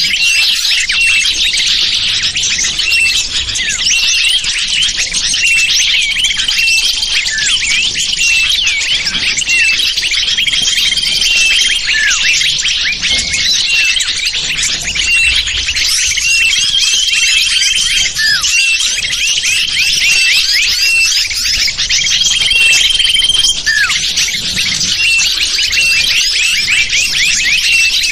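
Lure call for wild small birds: a dense chorus of many small birds chirping and twittering, with short level whistled notes repeating every second or so and a few longer ones.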